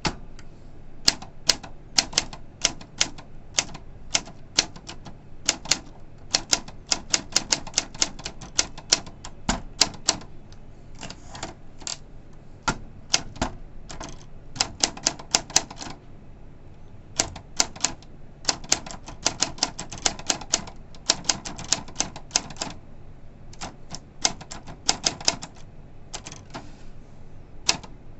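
Olympia SF portable manual typewriter being typed on: quick runs of sharp key and typebar strikes in bursts, with short pauses between them and a longer pause about 16 seconds in.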